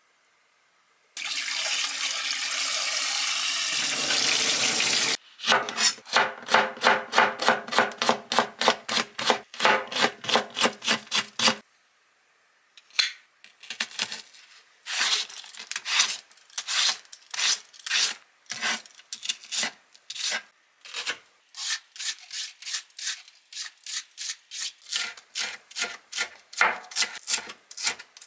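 A few seconds of steady rushing noise, then rapid rubbing strokes, about four a second, which later become irregular.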